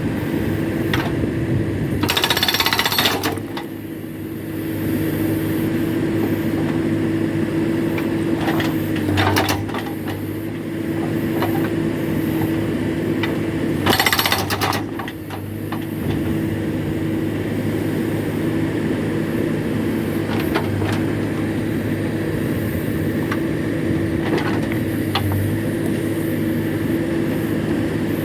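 Backhoe-mounted hydraulic rock breaker hammering steadily, with the backhoe's engine running under it. There are two brief louder bursts, about two seconds in and again around fourteen seconds in, each followed by a short drop in level.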